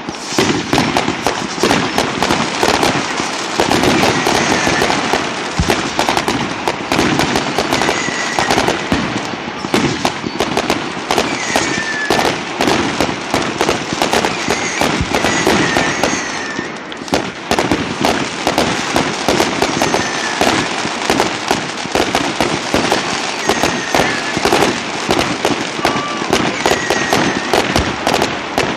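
Fireworks going off without pause: a dense, rapid crackle of bangs and pops, with brief high whistles now and then.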